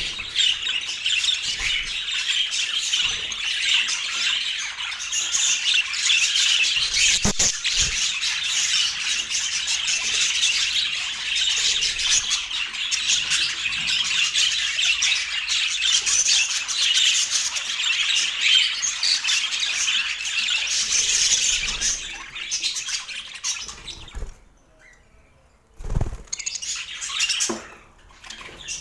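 Budgerigars chattering: a dense, continuous twittering and chirping that stops abruptly about four-fifths of the way through. A dull thump follows, then a few scattered short sounds.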